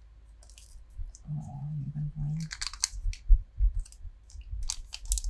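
Foil wrapper of a Pokemon trading-card booster pack crinkling and rustling in the hands in short, sharp bursts, with light knocks of the pack being handled. A voice hums briefly about a second in, before the crinkling starts.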